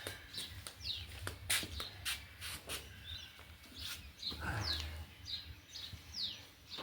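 Small birds chirping, a run of quick falling chirps repeated several times a second, over a low steady hum. Scattered sharp clicks and knocks are heard as well.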